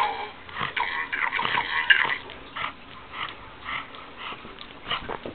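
Pug breathing noisily while mouthing a plush toy: a busy patch of sound at first, then a run of short breaths about two a second.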